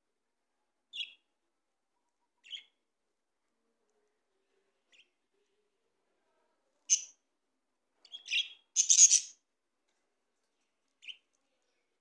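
Budgerigars chirping in short, separate calls with pauses between them. A louder, denser flurry of chirps comes about eight to nine seconds in.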